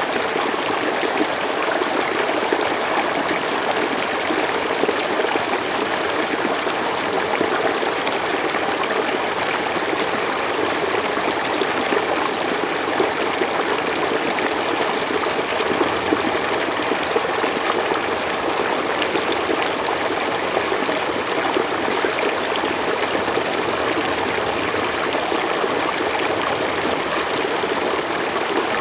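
River water flowing over rocks: a steady, even rush with small gurgles and trickles.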